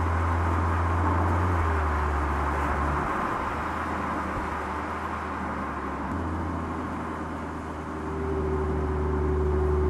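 Mercedes-AMG GLC 43 Coupé driving along the road, a steady rush of driving noise over a low drone that steps to a new pitch a few times.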